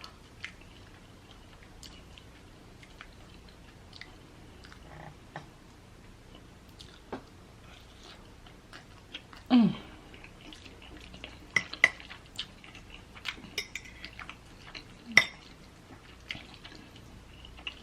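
Eating sounds: cutlery clicking and clinking against dishes with soft chewing, in scattered small clicks that grow busier in the second half, with two louder knocks.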